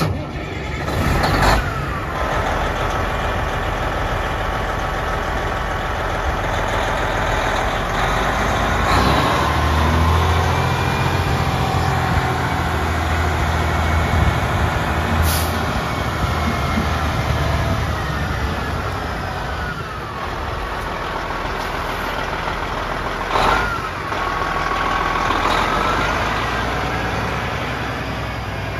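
Diesel engine of a Peterbilt 377 day cab truck tractor running, its pitch falling and rising a few times, with a few short sharp sounds over it.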